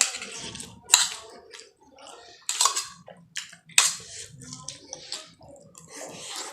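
Close-up eating sounds: wet, irregular noises of food being handled and chewed, broken by several sharp clicks of food or fingers against the plate.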